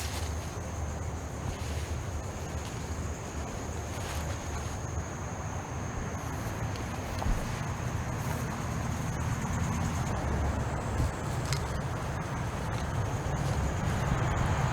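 A vehicle engine running with a steady low rumble that grows louder near the end, with a faint steady high whine above it.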